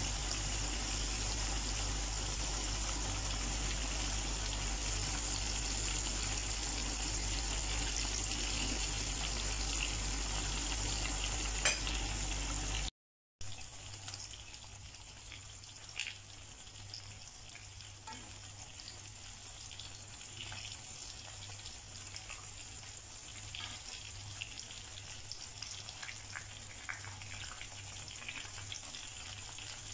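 Coated chicken pieces deep-frying in hot oil in a pan: a steady sizzle with scattered pops and crackles. About 13 s in it cuts out for a moment and resumes quieter.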